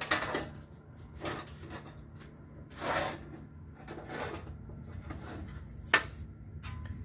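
Thin sheet-steel repair panel being flexed by hand and handled against the truck body: a few short scraping rustles and one sharp metallic tap about six seconds in, over a steady low hum.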